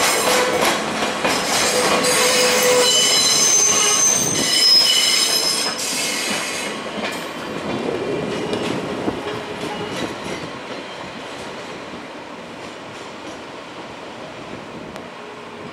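Wheels of a short freight train (a DE10 diesel locomotive, a container flat wagon and a Yo 8000 brake van) squealing high-pitched as it rolls slowly over the station tracks. The squeal fades after about six seconds, leaving a quieter running sound that dies away as the train moves off.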